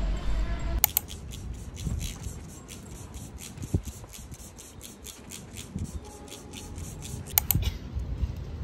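Hairdressing scissors snipping hair in a quick, even rhythm of about four snips a second, starting about a second in and stopping shortly before the end.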